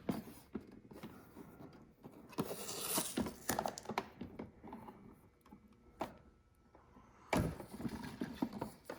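Keurig K-Mini coffee maker being handled and turned around: scattered knocks and rubbing, with a louder thunk about seven seconds in.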